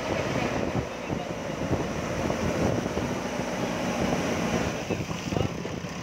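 JCB backhoe loader's diesel engine running under load as the front loader bucket shoves a heap of soil and gravel, with scattered crackles from the loose material.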